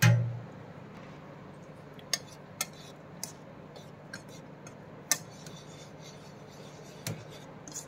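Metal wire whisk mixing dry flour in a bowl: a dull knock at the start, then scattered sharp clicks as the whisk strikes the sides of the bowl.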